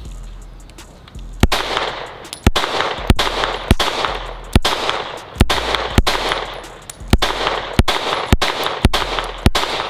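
Springfield Echelon 4.0C 9mm striker-fired pistol, fitted with a compensator, firing a steady string of about a dozen shots spaced roughly half a second to a second apart. The string starts about a second and a half in, and each shot trails a brief echo.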